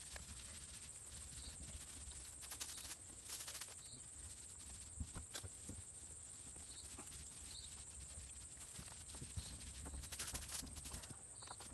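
Faint outdoor quiet with a steady high hiss, broken by scattered light knocks and taps from hand work on the wooden outhouse, in small clusters a few seconds in and again near the end.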